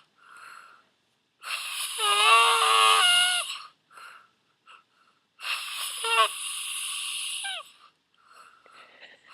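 Person snoring in long, high-pitched, wavering whines: two of about two seconds each, with short faint breaths between.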